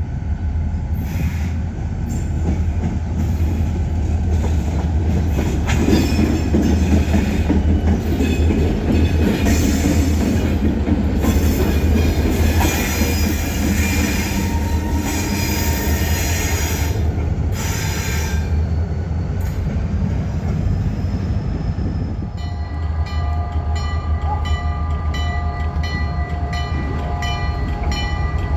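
Ferromex freight train rolling past with a steady low rumble and squealing wheels. The squeal is strongest in the middle. Near the end it turns into a regular repeating pattern of squeal tones and clicks.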